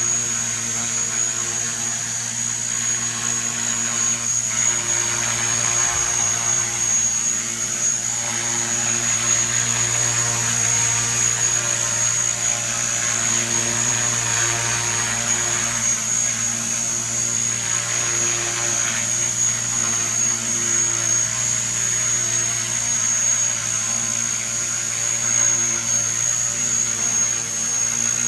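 Small radio-controlled model helicopter running steadily as it hovers and sets down. A low rotor hum runs under a steady high-pitched whine.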